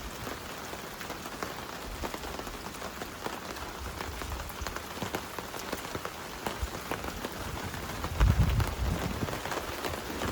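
Steady rain, with many individual drops ticking on a hard surface. About eight seconds in there is a brief low rumble, the loudest moment.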